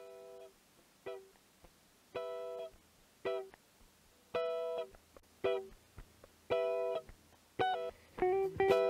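Background music: sparse plucked guitar notes, a longer note about every two seconds with a short one between, turning into a quicker run of notes near the end.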